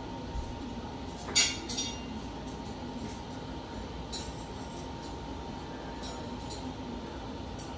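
A steady background hum with a sharp, ringing clink about one and a half seconds in, followed by a few faint clicks.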